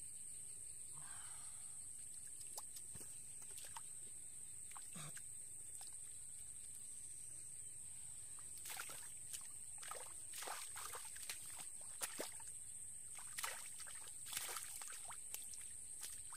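Hands sloshing and splashing in shallow muddy water while groping for fish, a few scattered splashes at first and a busy run of them from about halfway through. A steady high-pitched whine runs underneath.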